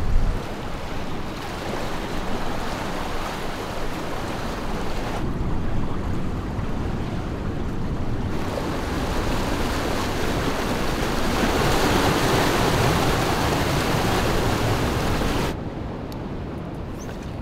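Ocean surf washing against the rocks of a jetty, a steady rushing noise with some wind. It changes level abruptly a few times and drops off sharply near the end.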